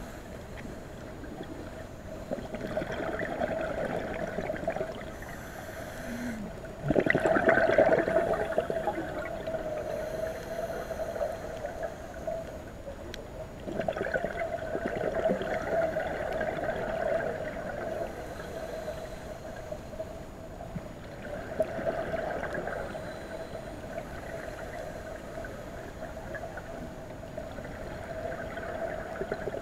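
Scuba diver breathing underwater: rushes of exhaled regulator bubbles rise and fall about every six to seven seconds, the loudest starting suddenly about seven seconds in, over a steady underwater hum.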